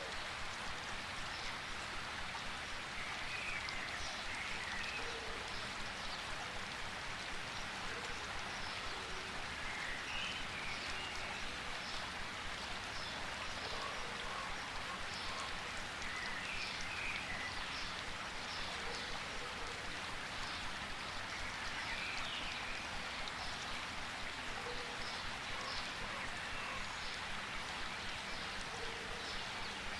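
Steady rain falling in a rainforest, a continuous even hiss with close drops pattering, and faint short chirps every few seconds.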